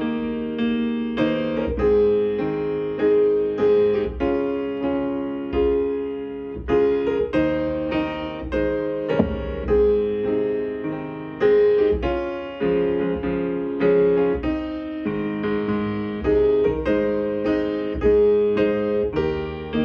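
Piano playing slow chords, each struck note ringing and then fading before the next.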